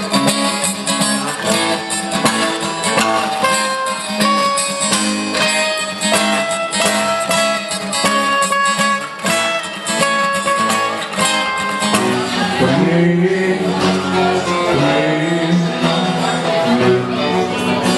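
Two acoustic guitars playing an instrumental passage live: quick picked single notes over a chord pattern. About twelve seconds in, the playing changes to lower notes that bend and slide in pitch.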